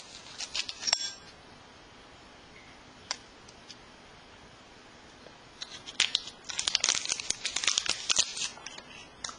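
Paper sweetener packets being handled and crinkled by hand: a short burst of crackling in the first second, a single click about three seconds in, then a longer stretch of dense crinkling and tearing from about six seconds to near the end.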